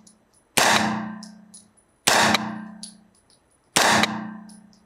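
Three shots from a Springfield Armory Saint Victor 9mm carbine, about a second and a half apart. Each crack rings out in a long echoing decay off the walls of an indoor range, followed by faint light clinks.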